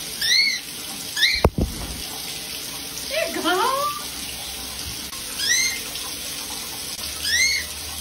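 Shower spray running steadily, with a cockatiel giving short rising-and-falling chirps about four times and a lower flurry of calls near the middle. There is a single sharp knock about a second and a half in.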